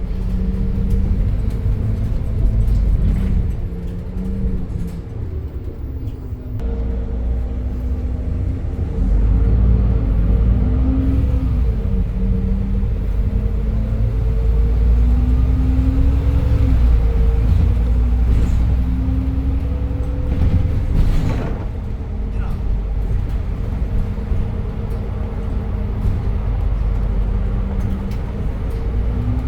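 Doosan GX12P CNG engine of a 2021 Edison Motors Smart 110G low-floor city bus, heard from inside the bus, running under way with its pitch rising and falling several times as the bus speeds up and the ZF automatic gearbox shifts. There is a single sharp knock about two-thirds of the way through.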